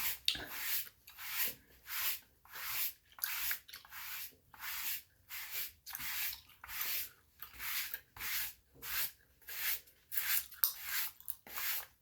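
Dry brush bristles sweeping over skin in quick repeated strokes, about two a second, each a short dry hiss.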